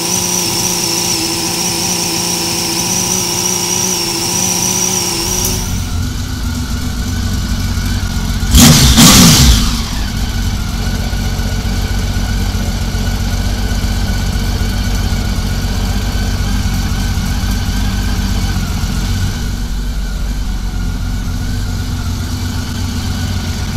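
Honda Valkyrie's flat-six engine idling steadily while its six carburetors are being synchronized, with one short rev about nine seconds in.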